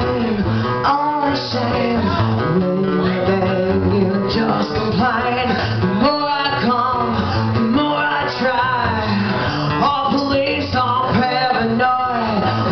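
A live band playing with electric guitar to the fore, heard in the room.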